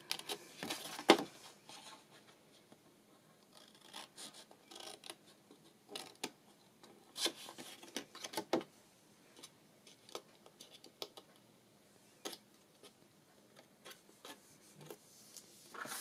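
Scissors snipping short cuts into cardstock, with the card rustling and sliding as it is handled. The snips and clicks come irregularly, the sharpest about a second in.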